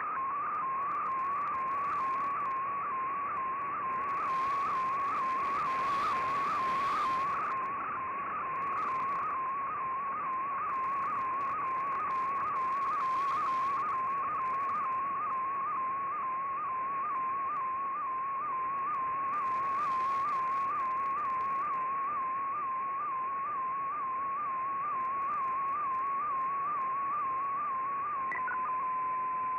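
Shortwave digital picture transmission in fldigi's MFSK image mode, heard through an Icom IC-R8600 receiver: a single whistling tone near 1 kHz that wobbles in pitch at an even rhythm of about twice a second over steady band hiss, the pitch carrying the brightness of each picture line as it is sent. Near the end the wobble stops and the tone holds steady.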